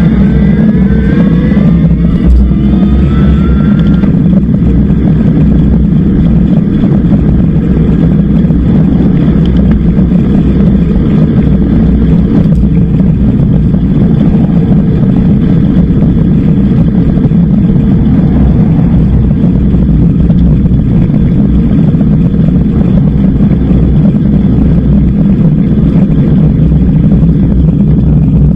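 Steady wind rumble on an action camera's microphone, with road noise, from an e-bike riding along a road. In the first few seconds a rising whine climbs in pitch, then fades into the rumble.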